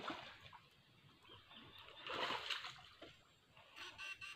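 Faint splashing of stream water: a short splash at the start and a louder, longer one about two seconds in.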